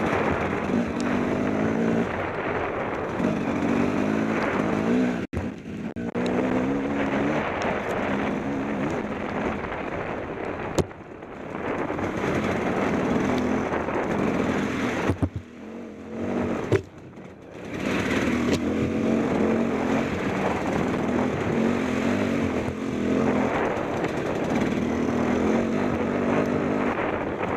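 KTM 250 XC-W two-stroke dirt bike engine revving up and down hard as it is ridden through muddy puddles, the pitch rising and falling with each burst of throttle. The engine note drops away briefly a few times, once about two-fifths of the way in and again a little past halfway, where the throttle is shut off.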